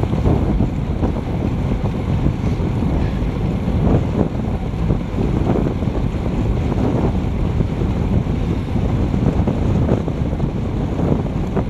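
Steady wind noise rumbling on a bicycle-mounted action camera's microphone, riding at about 35 km/h.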